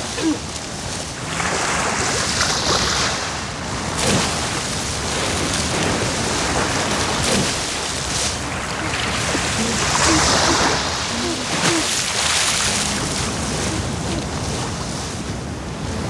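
A herd of walruses stampeding into the sea, their heavy bodies splashing and churning the water over surf. The splashing comes in louder surges about two seconds in and again about ten seconds in.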